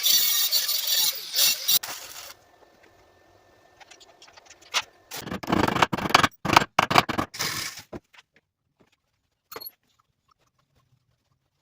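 Welding on a broken steel sprocket, crackling harshly in bursts: one about two seconds long at the start, a run of short bursts a few seconds later, then a few faint clicks.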